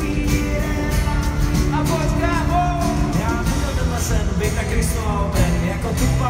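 Music with a singing voice gliding over long held chords and a steady bass line.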